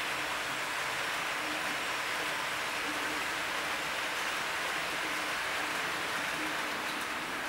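Model freight train of container wagons rolling past on model railway track: a steady hissing rolling noise of the small wheels on the rails.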